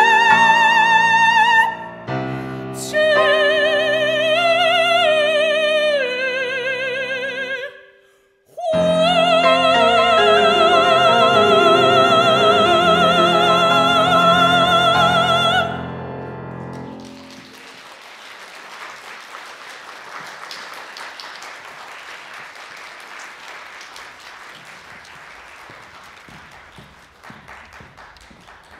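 A high operatic voice singing with vibrato over piano. It pauses briefly about eight seconds in, then holds a long final note while the piano closes the piece. Audience applause follows through the second half and thins out toward the end.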